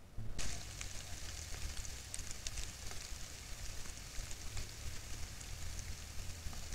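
Trail-camera audio: a steady high hiss with scattered faint crackles and a low rumble, starting suddenly about half a second in.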